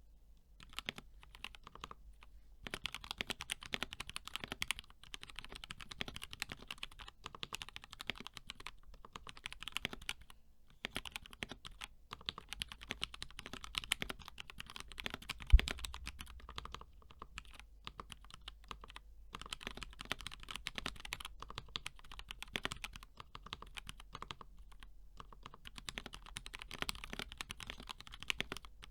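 Typing on a 60% mechanical keyboard with lubed and filmed KS3 black switches on an aluminium plate, under HK Gaming keycaps: a fast, steady run of key clacks broken by a few short pauses. One low thump about halfway through.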